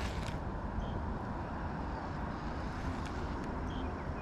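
A steady low rumble of outdoor background noise, with a few short, faint high chirps now and then.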